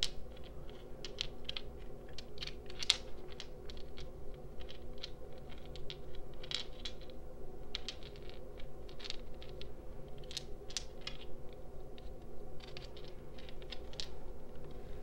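Small crystals and stones clicking and tapping as they are handled and set down, in irregular light taps, a few of them close together.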